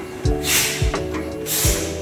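Background music with a beat: low kick-drum thumps, held bass notes and swelling cymbal-like sweeps.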